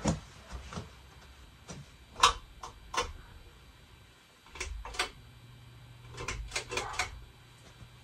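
A string of sharp clicks and knocks, irregularly spaced, with a cluster of quicker ones near the end; a low steady hum grows stronger about halfway through.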